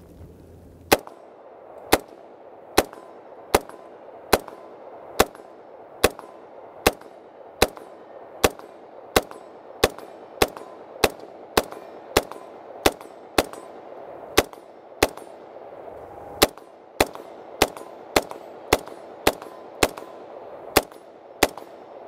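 Daewoo K2 (Max II) 5.56 mm rifle fired in semi-automatic, about thirty single shots at a steady pace of a little under one a second, starting about a second in and quickening slightly toward the end.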